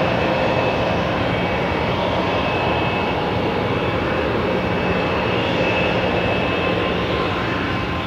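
Twin jet engines of a Sukhoi Su-35 fighter running at low power as it taxis: a steady roar with a whine held at a few even pitches.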